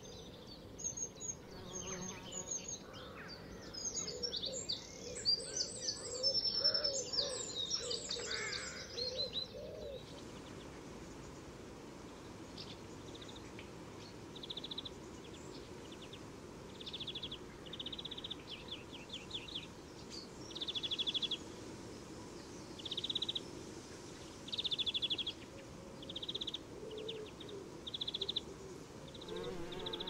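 Several songbirds chirping and singing together. About ten seconds in, the background changes abruptly and a single bird takes over, repeating short trills every second or two.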